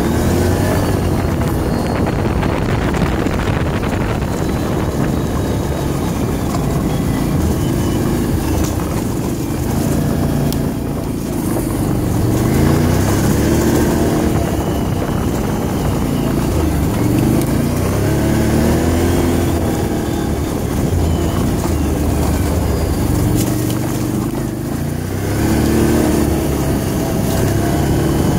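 Can-Am off-road vehicle's engine running while riding, its pitch repeatedly rising and falling as the throttle is opened and eased off.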